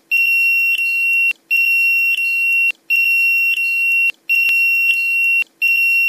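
Homemade anti-theft alarm's buzzer going off: a steady high-pitched beep about a second long, broken by short gaps and repeating about every 1.4 seconds.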